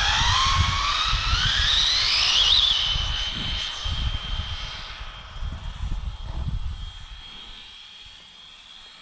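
Arrma Limitless RC car's brushless electric motor on 6S at full throttle in a speed run: a whine that climbs steeply for about two and a half seconds, then holds a steady high pitch that slowly fades as the car runs away at top speed. An uneven low rumble runs under it for the first several seconds.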